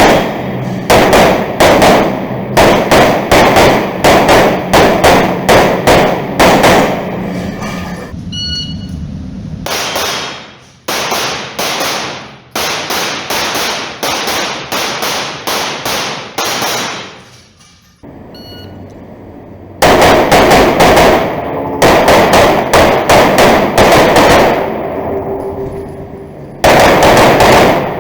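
Rapid strings of pistol shots from an STI Trubor, a compensated open-division race pistol, fired mostly in quick pairs. The strings are broken by short pauses of a second or two.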